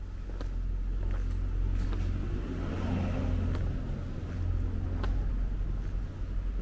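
Footsteps walking on a paved street, roughly one step a second, over a steady low rumble that swells a little around the middle.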